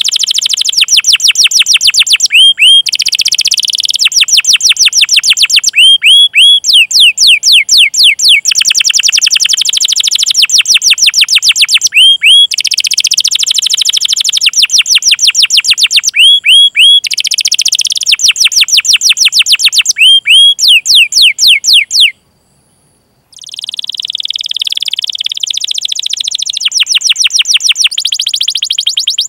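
Domestic canary singing: trains of loud, repeated downward-sweeping 'cuit cuit' chirps alternating with fast rolling trills. The song cuts out for about a second near the end, then resumes with a trill.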